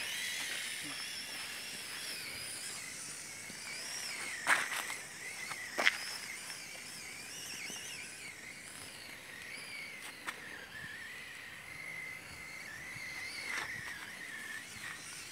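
Electric drive motor and gears of a Losi Night Crawler radio-controlled rock crawler whining, the pitch wavering up and down, with a few sharp knocks, the loudest about four and a half and six seconds in.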